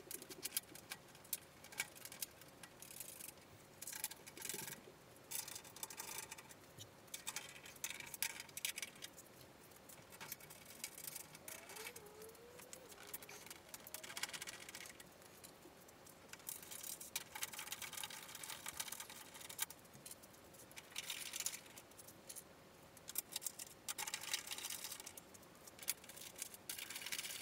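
Faint, irregular clinking and rattling of bolts, washers and a flat aluminium sheet under tray as the panel is held up under the car and its bolts are started by hand into riv nuts, in short clusters with quiet gaps between them.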